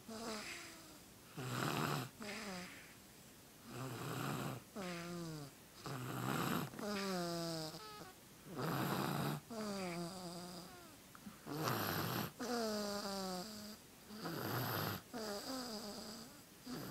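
A sleeping baby snoring in a steady rhythm, a breath about every two and a half seconds. Each breath is a rough snore followed by a higher, squeaky note that falls in pitch.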